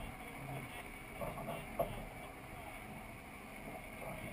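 Dufour 45e sailing yacht under way: water rushing along the hull with a steady wash of wind, and a brief knock just under two seconds in.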